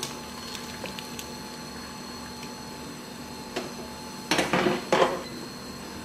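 Metal tongs clicking lightly against a Gourmia air fryer's basket over a faint steady hum, then two louder scraping knocks a little past the middle as the basket is pushed back into the fryer.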